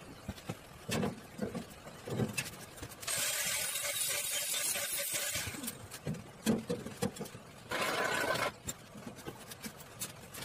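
Scattered knocks and clatter of hand work on a stainless-steel cabinet, with a steady hiss lasting about two and a half seconds midway and a shorter one near the end.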